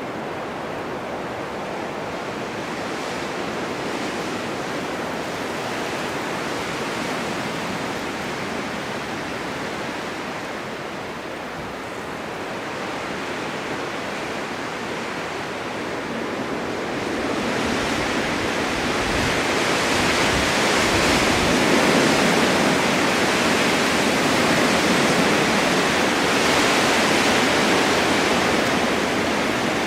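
Blizzard wind blowing snow across a winter mountainside, a steady rushing noise. It swells into a stronger gust a little over halfway through, with some low rumbling as it peaks.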